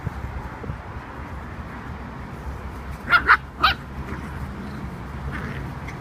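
Hungarian Pumi puppy giving three short, high play barks in quick succession about three seconds in.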